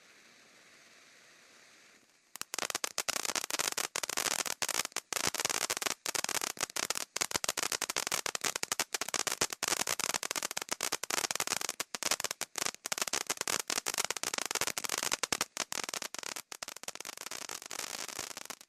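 Night Cat ground fountain firework, first with a faint hiss of spraying sparks. About two seconds in, a dense, rapid crackle breaks out and keeps going: its crackling silver and gold stars.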